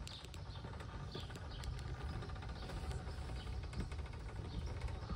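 Outdoor ambience: short bird chirps over a steady low rumble, with a few faint clicks.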